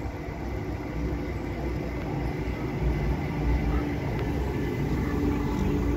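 Class 139 Parry People Mover railcar drawing slowly in, a low running rumble that grows louder as it nears and passes.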